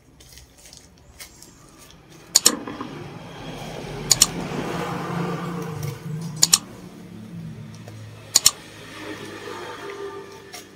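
Small scissors snipping open a plastic courier pouch: four sharp double clicks about two seconds apart, with plastic rustling and crinkling between them, most busily in the middle.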